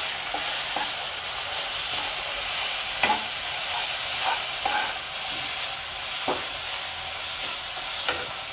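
A masala of ginger-garlic paste and ground spices sizzling in hot mustard oil in a kadai while it is stir-fried with a spatula, which scrapes and knocks against the pan every second or two.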